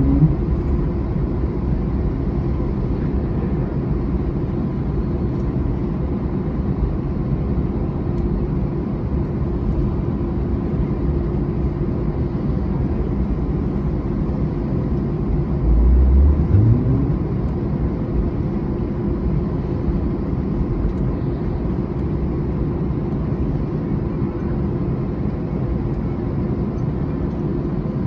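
Cabin noise inside an Airbus A321-211 taxiing: a steady low rumble from its idling CFM56 engines and airframe, with a faint steady hum. About halfway through, a low sound rises in pitch and grows louder for about a second.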